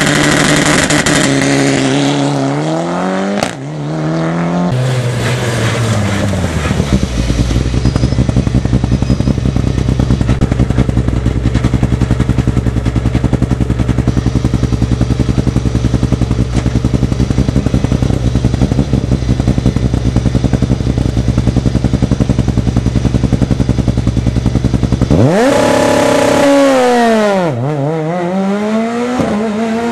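Rally car engines. First a Mitsubishi Lancer Evolution blips its revs up and down. Then a Peugeot 207 rally car idles at the start line with a steady, pulsing note for about twenty seconds, and about five seconds from the end it revs hard and launches away, its note climbing, dipping once at a gear change and climbing again.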